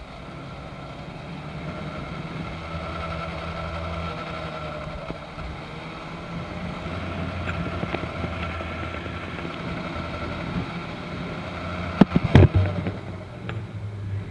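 Daelim Daystar 125cc motorcycle engine running steadily while riding, heard from on the bike. A few sharp knocks come about twelve seconds in and are the loudest sounds.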